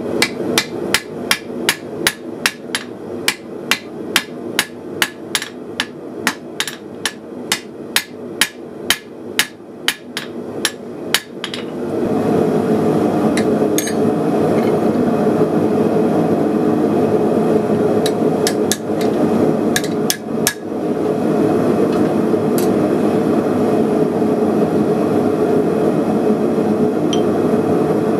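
Hand hammer striking red-hot knife steel on an anvil in a quick, steady rhythm, about two or three blows a second, for the first eleven seconds or so. After that a steady roar, typical of a propane gas forge burner, grows louder and continues, with only a few scattered hammer strikes.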